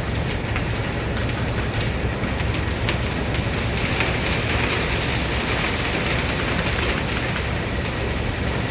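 Heavy diesel machinery running steadily on a concrete pour: a constant deep rumble with a gritty hiss over it that swells a little in the middle, and scattered light clanks.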